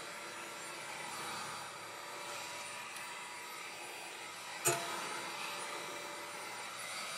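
Heat gun blowing steadily as it warms a 1/5 scale RC truck's two-stroke engine for a break-in heat cycle, with a single sharp knock about four and a half seconds in.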